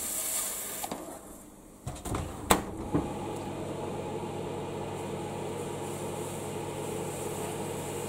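A smoke bomb's fuse hisses and dies away in the first second. After a few sharp clicks, the loudest about two and a half seconds in, a rangehood fan driven by a microwave oven's cooling-fan motor starts and runs with a steady hum.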